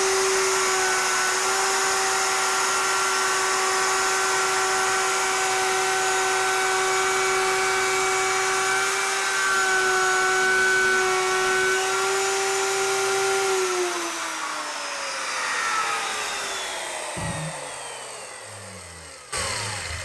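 Handheld router with a chamfer bit running at full speed as it routs a chamfer along the edge of a board, a steady high whine. About two-thirds of the way through it is switched off, and the whine falls in pitch as the motor spins down.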